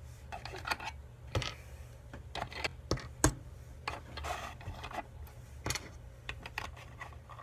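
Small plastic toy parts being handled, making a run of irregular light clicks and taps against each other and the countertop, with one sharper click a little past three seconds in.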